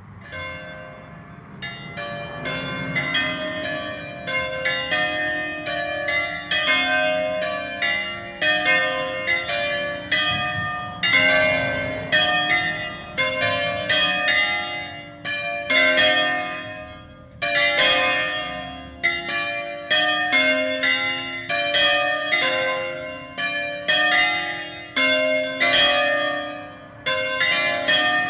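The four smaller bells of an Ambrosian peal, cast in 1928 by Angelo Bianchi of Varese and tuned C, D, E-flat and F, swinging full circle in a distesa. Their strikes overlap in a continuous tumble of ringing notes at different pitches. The peal starts about a second in and grows louder over the first few seconds as the bells gain swing.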